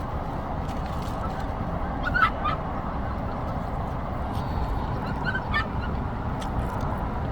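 Dog shut in a parked car giving short howling cries, two pairs of brief calls about three seconds apart, over a steady low background rumble. It is probably hot and wanting to get out.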